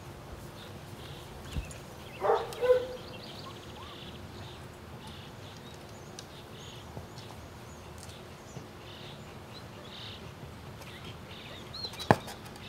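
A dog barks twice, about two seconds in, over a quiet outdoor background with faint bird chirps throughout. A single sharp click sounds near the end.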